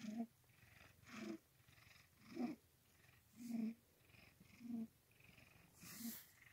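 Domestic cat (orange tabby) purring in close-up, the purr swelling about once a second with each breath, six swells in all.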